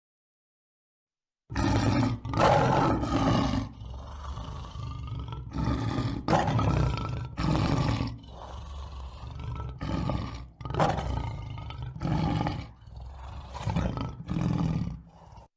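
Lion roaring: a run of about a dozen grunting roars, roughly one a second, starting after a short silence.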